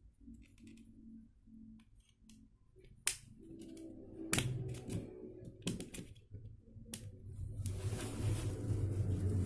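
A handful of sharp clicks and taps from small hard tools and phone parts being handled on a repair bench, spread over a few seconds. Near the end they give way to a longer rustling scrape as a hand works close by.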